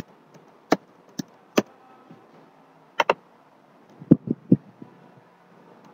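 Scattered clicks of a computer keyboard and mouse. There are single clicks, a quick double click about three seconds in, and a cluster of three duller taps about four seconds in.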